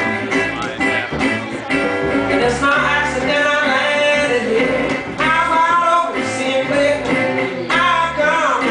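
Live acoustic blues-folk duo: acoustic guitar picked and upright bass plucked, with a man singing lines that come in about two and a half seconds in and again near the middle and the end.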